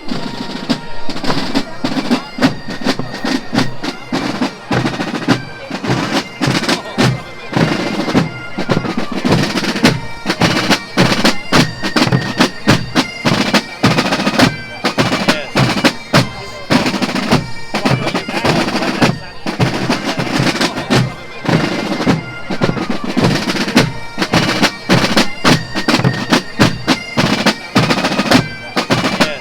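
Bagpipes and drums of a pipe band playing: a bagpipe melody of held notes over rapid snare drum strokes and rolls.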